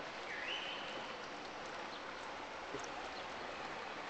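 Steady hiss of water and wind around a gondola being rowed, with a brief high squeak that steps up in pitch about half a second in and a few faint clicks.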